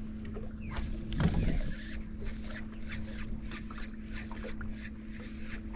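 Minn Kota electric trolling motor running with a steady low hum. Faint light ticks start about two seconds in.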